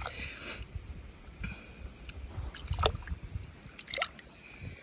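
Shallow seawater trickling and dripping around the mussel bed, with a couple of sharp drips or small splashes about three and four seconds in.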